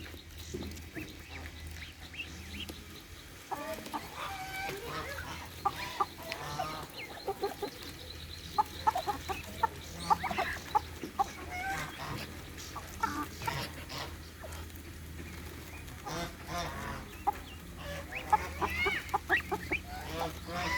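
Chickens clucking: many short calls, sparse at first and busier from about three seconds in.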